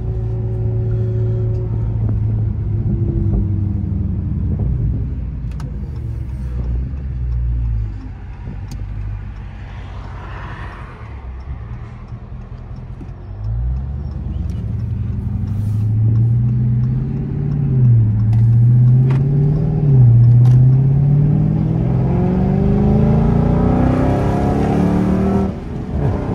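Dodge Scat Pack's 6.4-litre HEMI V8 on the move: a steady cruising hum, a quieter stretch about eight seconds in, then hard acceleration from about thirteen seconds with the engine's pitch rising and dipping through gear changes, ending in a long rising pull that drops back at a shift near the end.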